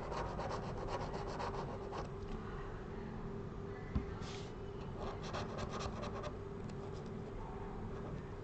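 Chisel-tipped hobby knife scraping leftover screen adhesive off an iPad's frame in quick, repeated scratching strokes, in two runs. There is a single light knock about four seconds in, over a steady low hum.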